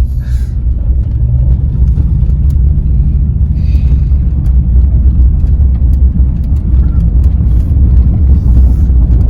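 A vehicle driving along, a steady low rumble of engine and road noise with scattered small knocks and rattles.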